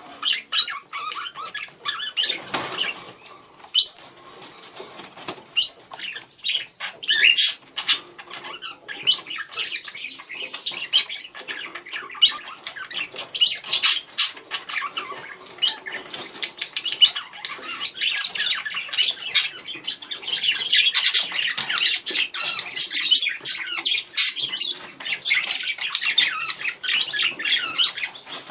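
Budgerigars calling to each other: short, rising contact calls repeated about once a second, over a busier chatter that thickens in the second half. A brief rustle comes about two seconds in.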